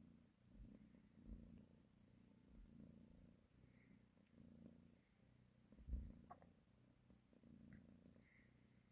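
Soft, low cat purring during nursing, swelling and fading about once a second. There is a brief low thump about six seconds in.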